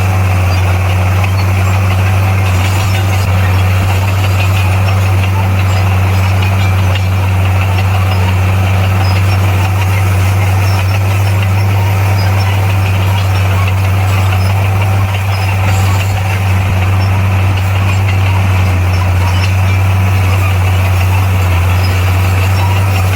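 Komatsu bulldozer's diesel engine running steadily, a constant low drone.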